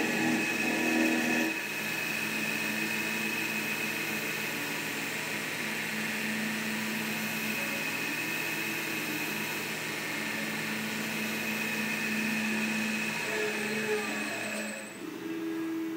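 Wood lathe running steadily with a steady motor whine while a turned wooden chisel handle spins. A block is rubbed against the spinning wood for about the first second and a half. The sound changes abruptly near the end.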